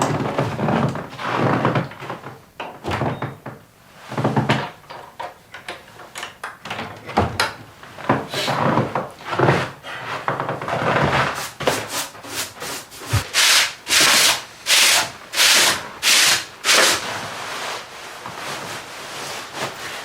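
Rubbing and scraping, with irregular rustles and scrapes at first. About halfway through comes a run of quick, regular scraping strokes, two or three a second, lasting several seconds.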